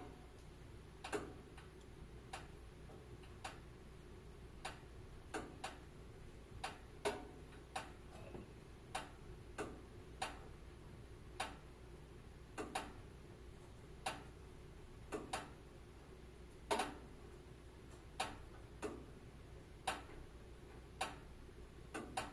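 Wood fire crackling in a fireplace: sharp, irregular pops and snaps, about one or two a second, over a faint steady low hum.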